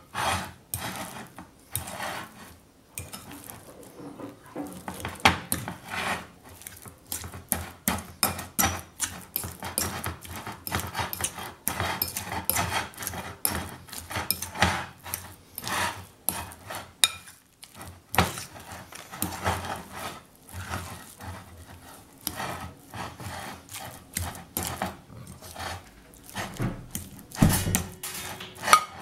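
Hands kneading soft parsley-and-garlic butter in a glass bowl: a quick, irregular run of sticky rubbing sounds, clicks and knocks against the glass, with a louder knock near the end.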